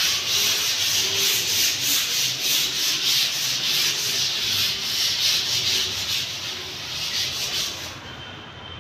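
A fast, even rubbing or scraping noise, several strokes a second, that drops away near the end.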